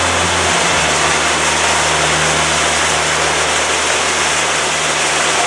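Ground firework wheel spinning and spraying silver sparks, giving a steady, loud hiss, with a low hum underneath that shifts about half a second in.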